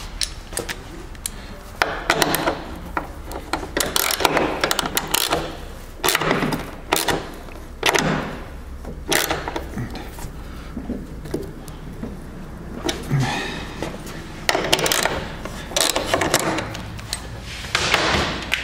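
Hand work on jet pump mounting hardware: metal bolts and a hand tool clicking, knocking and scraping against the pump and hull in irregular clicks and rubbing sounds.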